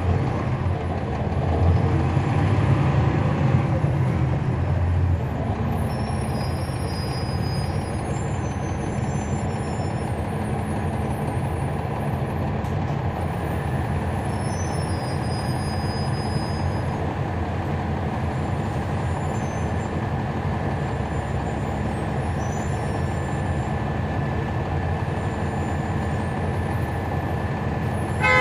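Cabin sound of a NABI 416.15 transit bus with a Cummins ISL9 diesel engine: engine and road noise heard on board. The engine swells for a few seconds near the start, then runs steadily.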